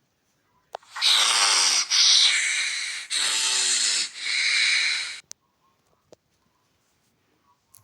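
A person breathing loudly and raspily, twice over: each time a breath of about a second with a falling tone, then a hissing breath of about a second.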